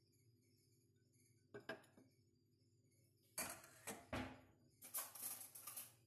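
A ceramic soup bowl is set down on a ceramic dinner plate. There is a light clink about a second and a half in, then two short spells of crockery scraping and handling noise, each about a second long.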